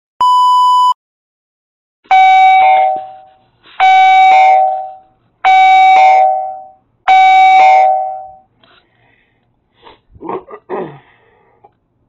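A short steady test-tone beep, then an electronic doorbell chime ringing four times in a row, each a two-note chime that fades out. A few short vocal sounds come near the end.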